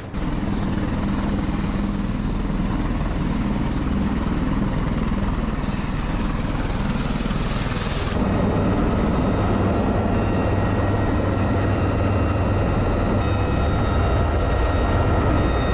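UH-1Y Venom helicopter running, its rotor and twin turboshaft engines making a loud, steady noise. About halfway the sound changes abruptly to the noise inside the open cabin: a steady high turbine whine over a low rotor drone.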